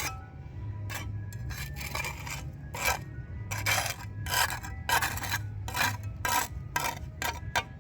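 A hard object scraping and rubbing in a quick, irregular series of strokes, with some clinks, over a steady low hum.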